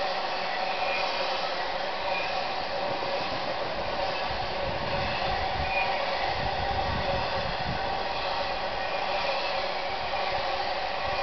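Intermodal freight cars loaded with highway trailers rolling steadily past below, a continuous rumble of wheels on rail. The low rumble grows heavier about four seconds in.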